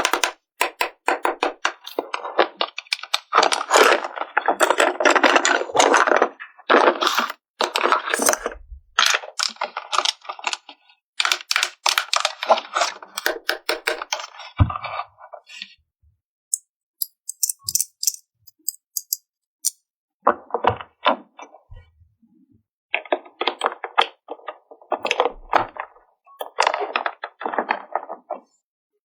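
Plastic toy pieces and packaging being handled: crackling, clicking and tapping in bursts, with a sharper knock about halfway through and short pauses between bursts.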